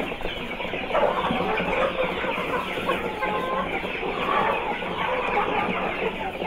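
A flock of improved Kienyeji hens clucking, many birds calling at once in a steady overlapping din.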